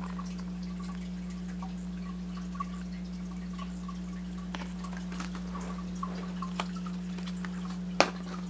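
Steady low electrical hum, with faint light ticks and a sharper click near the end as a plastic blister pack is handled.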